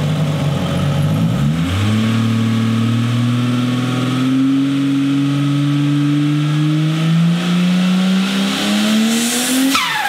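Turbocharged RB30 straight-six in a Holden VL revving up about a second and a half in and held high for several seconds, its pitch creeping slowly upward. Just before the end the throttle snaps shut and the turbo starts to flutter (dose), its pitch dropping away fast, through a 3-inch stainless dose pipe with a 90-degree bend, which makes the flutter unusually loud.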